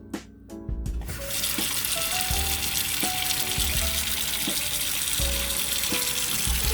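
Water running from a tap into a bowl of cut potato fries, to soak them in salt water; the steady flow starts about a second in.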